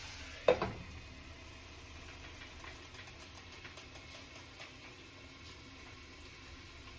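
One sharp clank with a short ring about half a second in, as a utensil or lid strikes the pan, then faint light ticking and crackling from potatoes frying.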